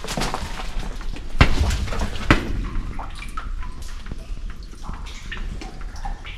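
A hiker's footsteps on a trail: irregular crunching steps, with two heavier ones between one and a half and two and a half seconds in.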